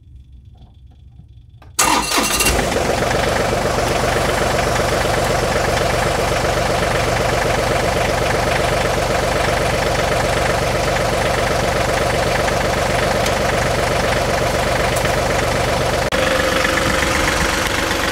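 John Deere 3038E compact tractor's three-cylinder diesel engine started about two seconds in, catching at once and then idling steadily.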